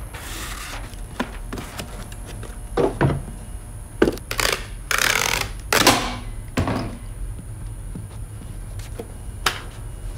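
A cardboard box being handled and sealed with a hand-held packing-tape dispenser: knocks and rustles of cardboard, then several short tearing sounds as tape is pulled off the roll across the box about halfway through.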